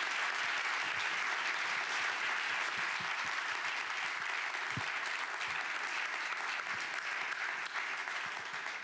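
Audience applauding steadily, dense clapping that eases off slightly near the end.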